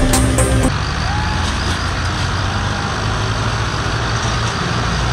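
Electronic music cuts off within the first second. Then several diesel farm tractors run hard together under heavy load, straining to pull a stuck trolley loaded with sugarcane.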